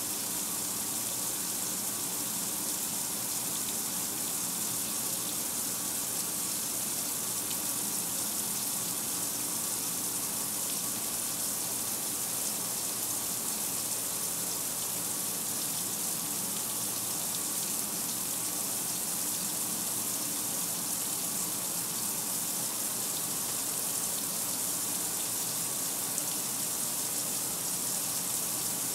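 Kenmore 800 top-load washer filling at the start of its wash cycle: a steady rush of water pouring into the tub.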